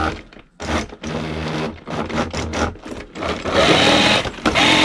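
HB Toys ZP1003/ZP1004 RC crawler's drive motor and electronics whining as the throttle is blipped in short bursts, then held for two longer, louder runs near the end. It sounds quite angry, a noise the owner puts down to the stock electronics, though the truck runs fine.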